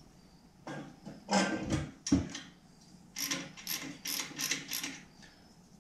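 A few metal knocks as a Drag Specialties 4-inch slip-on muffler is fitted to the motorcycle's exhaust, then a quick run of ratchet clicks, about four a second, as its mounting bolt is tightened.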